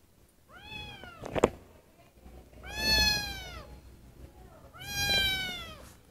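Young ginger kitten meowing three times, about two seconds apart, each a long call that rises and then falls in pitch: the crying of a kitten left on its own. A sharp click sounds right at the end of the first meow.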